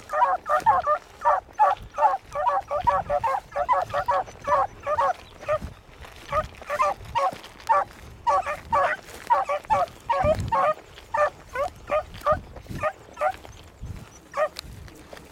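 Beagles baying on a rabbit's scent trail: a fast, unbroken string of short, overlapping hound cries, several a second. The voice is the sign that the hounds are running the track.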